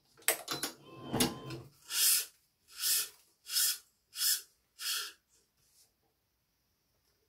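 A few clicks and knocks, then five even swishes about 0.7 s apart as a Yonex BG80 badminton string is pulled hand over hand through the racket frame during stringing.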